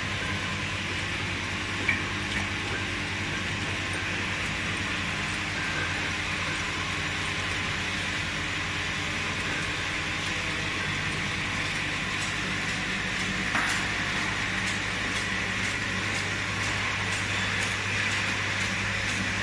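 Automatic bottle filling and capping machine running: a steady machine hum with a hiss of mechanism above it. About two-thirds of the way in, light ticks start, about two a second.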